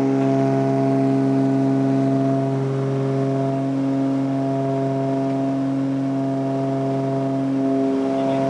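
Cessna 402B's twin propeller engines at takeoff and climb power, heard inside the cabin: a steady drone with a strong, even propeller hum.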